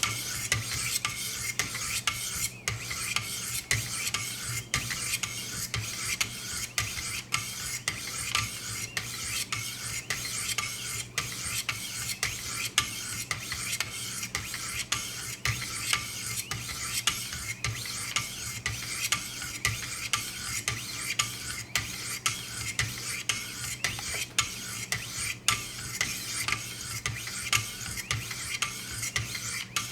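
400-grit diamond sharpening stones rasping along a VG-10 knife blade's edge in light, alternating strokes, an even run of short scrapes, about two a second.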